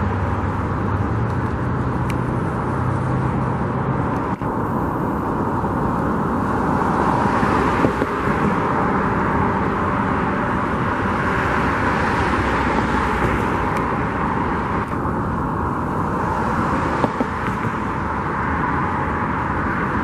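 A car driving, with steady engine and tyre noise. The tyre hiss grows louder through the middle and then eases off.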